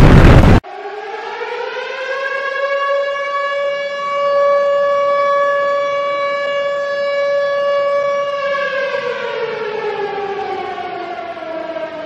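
A loud blast that cuts off abruptly about half a second in, followed by an air-raid siren that winds up over a couple of seconds, holds one steady tone, then winds down in pitch over the last few seconds.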